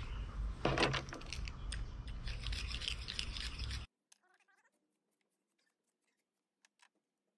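Handling noise as a fluxed copper pipe and elbow are set down on a plywood table: sharp knocks about a second in, then rubbing and scraping, over a steady low background rumble. The sound cuts off abruptly just before four seconds in, leaving near silence with a few faint ticks.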